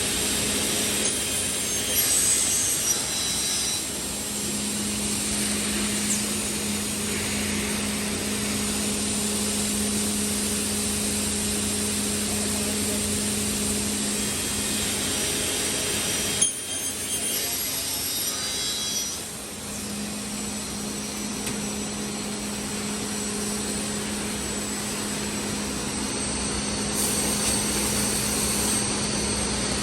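CNC panel saw running and cutting boards: a steady motor hum under the noise of the blade going through the panels. About halfway through comes a sharp click, after which the hum drops out for a few seconds and then resumes.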